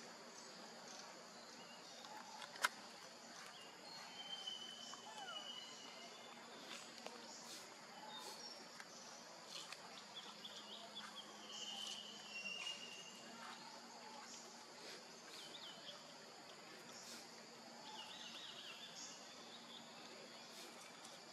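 Faint forest ambience: a steady high drone of insects with a few short bird chirps and scattered light clicks, and one sharp click about two and a half seconds in.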